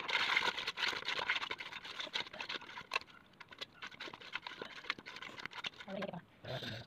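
Fingers mixing a wet paste of chilli powder and turmeric in a metal pan, rubbing and squishing it against the metal in a rapid run of scrapes and wet clicks. The sound is loudest in the first three seconds and fainter after.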